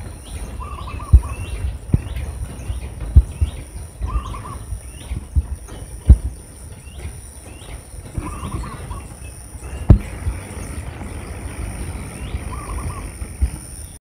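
Zebra dove calling: a short phrase of rapid cooing notes, repeated four times about every four seconds, over the frequent short chirps of other small birds. Several sharp low thumps on the microphone are the loudest sounds.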